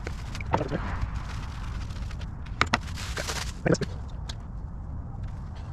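Handling noise from bicycle headset reassembly: a few light clicks and knocks as small parts and tools are picked up and set down on a wooden workbench, with a brief rustle about three seconds in, over a steady low background rumble.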